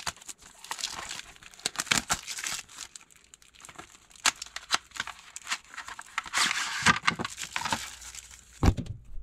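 Clear plastic wrapping crinkling and tearing as a phone case's box is unwrapped and opened by hand, with irregular crackles and rustles throughout. A single sharp knock comes near the end.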